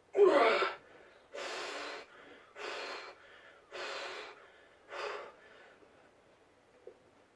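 A person's loud voiced gasp, then four hard, noisy breaths about a second apart, each a little shorter: heavy breathing of someone catching their breath after exertion.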